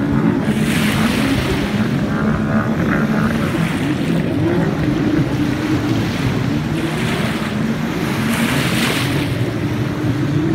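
Distant racing runabout jet skis' engines droning, their pitch rising and falling as they run the course, over choppy lake water and wind on the microphone, with gusts of hiss about a second in and near the end.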